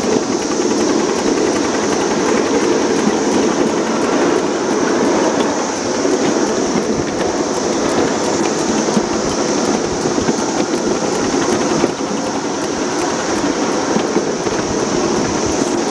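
Ridable live-steam miniature locomotive and its riding cars running along the track: a steady clatter of small wheels on the rails.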